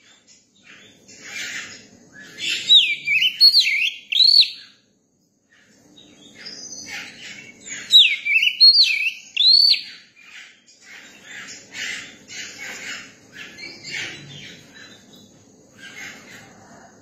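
Young Oriental magpie-robin singing: loud swooping whistled phrases that rise and fall, in two bursts, mixed with many short scratchy, chattering notes.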